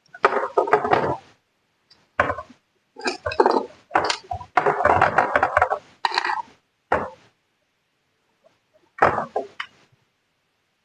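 Bursts of handling noise from drone parts being worked on the bench: knocks, clinks and rustling in about seven separate spells, with a longer pause of about two seconds near the end.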